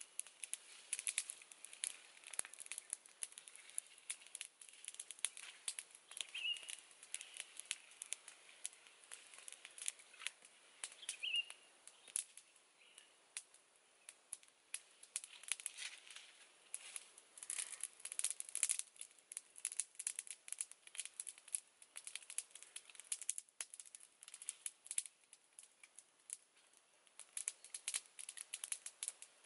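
Crisp crinkling and tearing of fresh cassava leaves being picked and torn by hand, in irregular bursts of sharp rustles. A bird chirps briefly twice in the first half.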